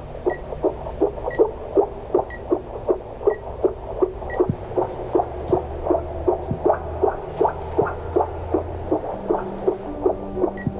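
Fetal heartbeat from a CTG fetal monitor's Doppler loudspeaker: a fast, even pulsing a little over two beats a second, about 138 beats a minute, within the normal range for a fetal heart.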